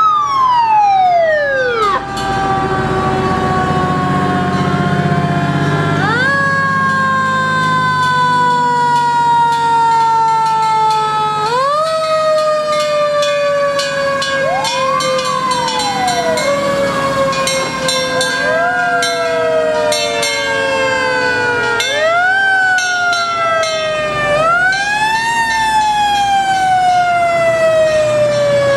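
Several antique fire trucks' mechanical sirens wailing and overlapping: each winds up quickly, then coasts down slowly over several seconds before being wound up again. Truck engines rumble underneath.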